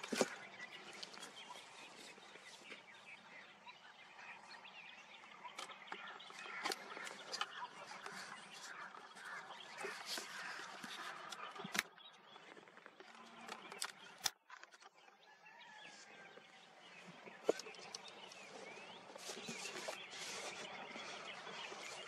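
Many birds chirping and chattering together, a busy, fairly faint mix of short calls that breaks off for a moment about fourteen seconds in.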